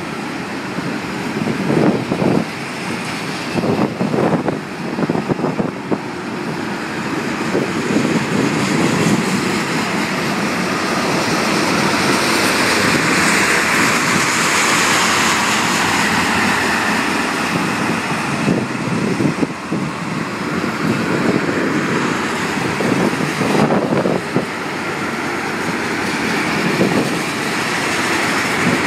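Freight train of tank cars rolling past: a steady rumble and clatter of steel wheels on the rails, with a few louder knocks.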